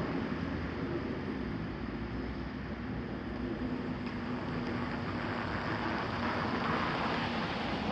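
Steady low rumble of an approaching train with wind noise on the microphone, slowly growing louder in the second half.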